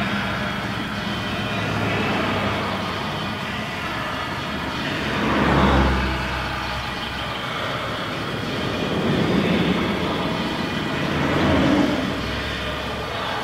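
Traffic on an elevated highway overhead: a steady rush of vehicles with three passing swells, the loudest about a third of the way in. Under it, now and then, the muffled bass of a pop song.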